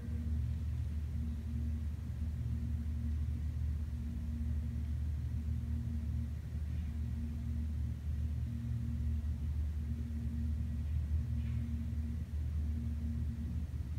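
A steady low machine hum and rumble, with a higher tone in it that comes and goes every second or so.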